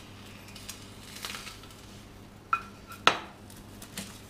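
A spatula clinking and scraping against a frying pan, with a few sharp knocks of pan and utensil. One knock about two and a half seconds in rings briefly, and the loudest comes just after it.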